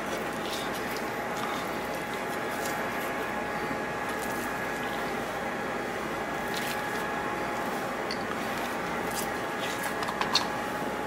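Steady hum of a kitchen ventilation fan, with faint clicks and taps from hands handling a whole seabass on a ceramic plate. There is a sharper tap near the end.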